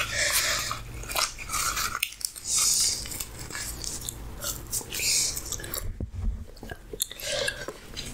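Close-miked mouth sounds of biting and chewing oily deep-fried puri bread: a series of separate bites and chews with short clicks between them.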